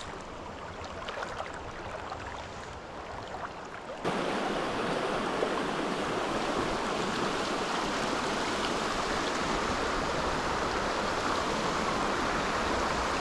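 Stream water flowing over a riffle, a steady rushing hiss. About four seconds in it jumps abruptly to a louder, fuller rush, as at a cut to a spot closer to the current.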